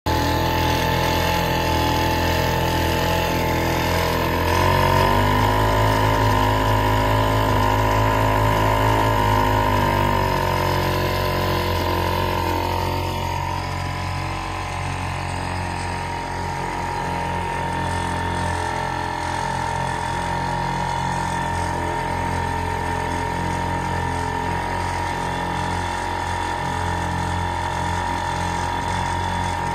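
1948 Evinrude Sportsman 1.5 hp two-stroke outboard motor running steadily under way. It is louder for the first dozen seconds, then a little quieter and steady from about halfway through.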